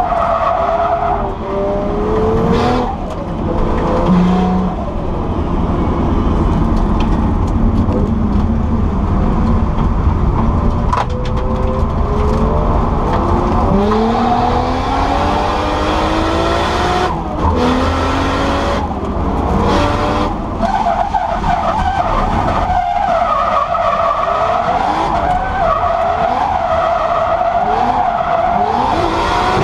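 Nissan Skyline R34 drift car's engine revving hard, its pitch climbing and dropping again and again with throttle and gear changes, heard from inside the cabin. Tyres squeal in a long steady screech as the car slides, strongest at the start and through the last third.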